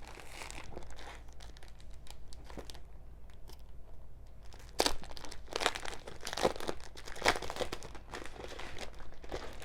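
Crinkling and rustling of scrapbook paper and its packaging as a paper collection is handled and unwrapped: soft at first, then busier crackling from about halfway.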